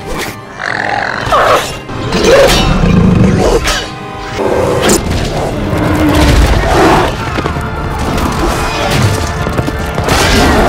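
Film battle soundtrack: music under a dense run of heavy impacts, booms and crashes, one after another.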